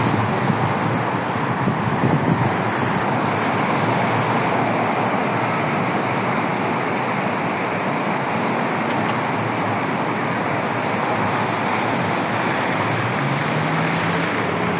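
Wind blowing as a steady, fairly loud rushing noise, gustier for the first couple of seconds.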